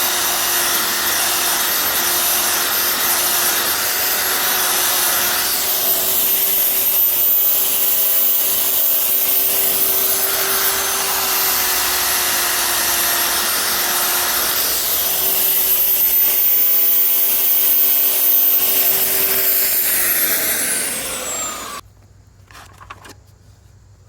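Makita 9403 4x24 belt sander running with a coarse 40-grit belt, grinding into wood. Its motor pitch sags briefly under load midway. Near the end it is switched off and winds down with a falling pitch.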